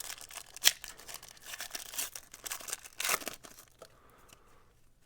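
A foil trading-card pack wrapper being torn open and crinkled, with a sharp rip about two-thirds of a second in and another near three seconds, going quiet after that.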